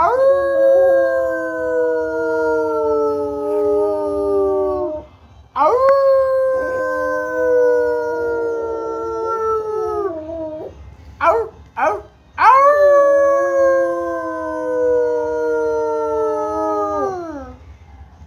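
Rottweiler howling: three long howls of about five seconds each, the pitch sliding slowly down and falling away at the end of each, with a few short sounds between the second and third.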